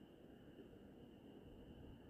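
Faint nighttime chorus of crickets, a steady unbroken high trill, over a low rumble of light wind.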